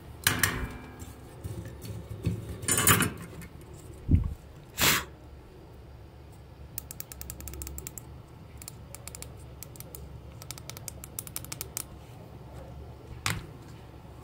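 Workbench handling noises: a few sharp knocks and a low thud as a soldering iron and small electronic parts are set down, then a run of small quick clicks and rustles while a toy remote's circuit board with tactile push buttons is handled, and one last knock near the end.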